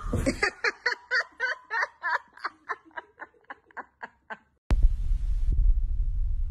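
A person laughing hard in a long run of short bursts, about four or five a second, that grow fainter and die away over about four seconds. About 4.7 s in the laughter gives way abruptly to a steady low rumble.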